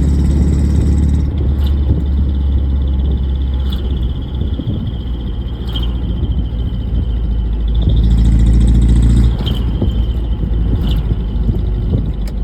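Engine idling through an exhaust fitted with a silencer: a steady low rumble that grows louder for about a second around eight seconds in. A few sharp clicks come at intervals.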